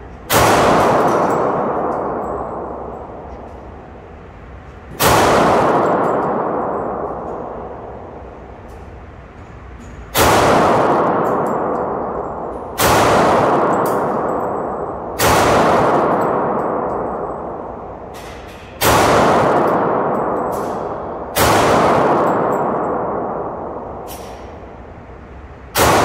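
Glock 32 Gen 4 pistol firing .40 S&W through a factory Glock 23 barrel: eight single shots at slow, uneven intervals of a few seconds, each with a long ringing echo from the indoor range. The pistol cycles and feeds normally with the conversion barrel.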